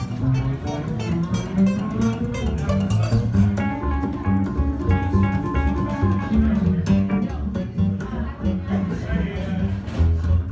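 Live folk-rock trio playing: acoustic guitar picking a quick run of notes over a walking upright double bass and a Nord stage piano.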